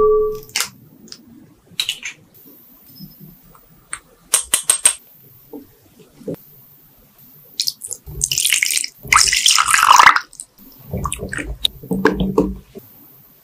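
Liquid pouring into a glass mixing bowl onto matcha powder, then a whisk stirring the green mixture against the glass. A few light clicks and taps come first.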